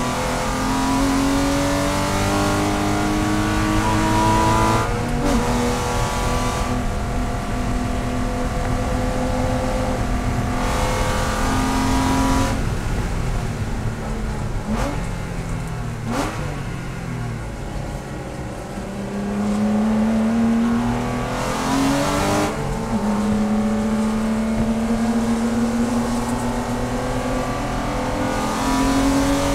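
Porsche race car engine heard from inside the cabin, revving hard under acceleration. The pitch climbs, drops sharply at an upshift about five seconds in, and keeps climbing. In the middle the driver lifts off for a corner and the engine goes lower and quieter with a couple of short blips on the downshift, then it climbs again with another shift a little past twenty seconds.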